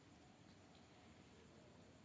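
Near silence: room tone, with a couple of very faint ticks.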